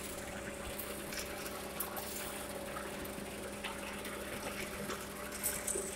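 Steady mechanical hum, even throughout, with a few faint scattered clicks over it.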